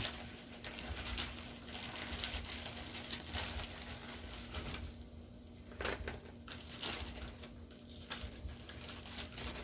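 Farmer's cheese being shredded on a grater: irregular scraping and rustling strokes with scattered light clicks.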